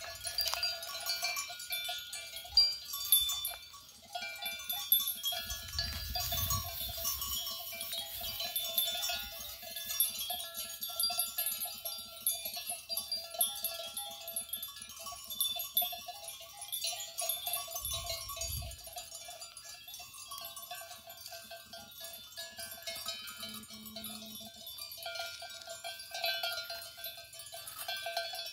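Small bells on grazing goats clinking and tinkling irregularly and continuously, with two brief low rumbles about six and eighteen seconds in.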